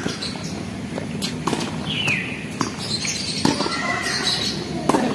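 Tennis rally on a hard court: a few sharp knocks of racket strikes and ball bounces spaced about a second apart, with a short squeak about two seconds in.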